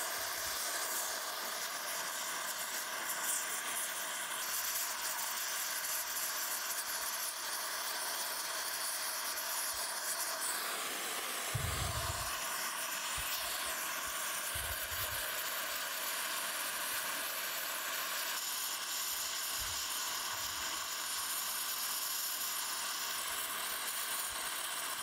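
Oxy-fuel torch flame hissing steadily while brazing a cracked cast iron steam chest casting, with a few soft low thumps around the middle.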